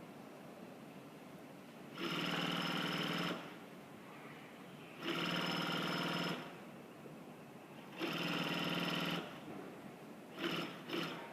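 A sewing machine for double-faced cashmere stitches in three short bursts of about a second and a half each, with a fast, even rattle. A few short knocks come near the end.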